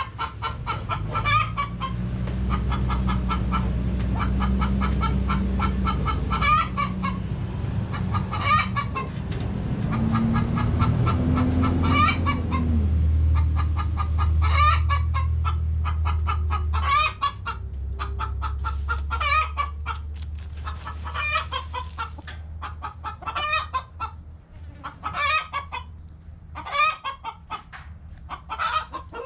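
Backyard chickens clucking: a steady run of short clucks with louder calls every second or two. Beneath them a low rumble swells through the first half and drops away about 17 seconds in.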